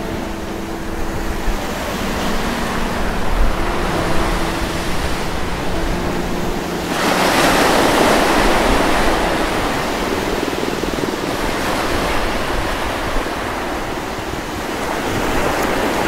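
Ocean surf washing up a sandy beach, with a bigger wave rushing in about seven seconds in and then slowly easing off.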